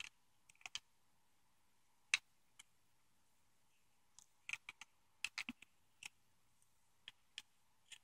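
Faint, scattered clicks of a small screwdriver tip working against the hard plastic of a GM E38 PCM harness connector while prying at its lock tab, with a few clicks close together about halfway through.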